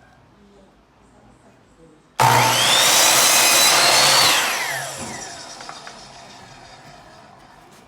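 Power saw cutting a wooden board to length. It starts abruptly about two seconds in and runs loud with a high whine for about two seconds, then is switched off and winds down with a falling whine.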